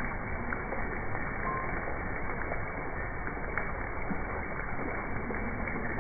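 Steady splash and rush of fountain water running into a stone pool.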